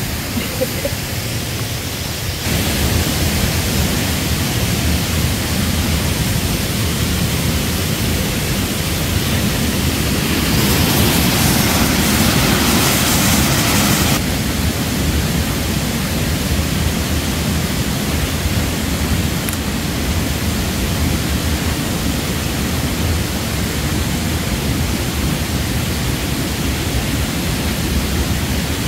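Steady rushing of a waterfall swollen by several days of rain. The roar steps up suddenly about two seconds in, grows brighter for a few seconds in the middle, then drops back abruptly.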